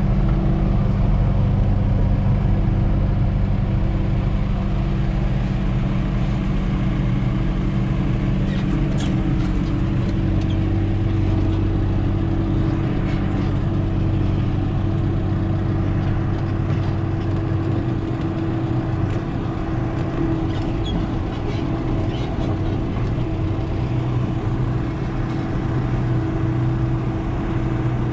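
Tractor engine running steadily at constant revs, a continuous drone with a steady pitch that shifts slightly about halfway through.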